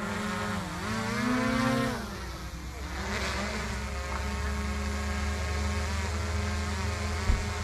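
Radio-control model aircraft motors and propellers buzzing overhead, more than one at once; one rises in pitch and then drops about two seconds in. A short sharp knock near the end.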